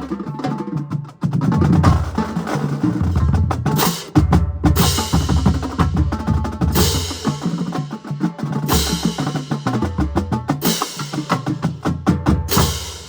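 Marching band drumline playing together: rapid snare and tenor strokes over pitched bass drums, with cymbal crashes about every two seconds. The piece ends in a cutoff right at the end.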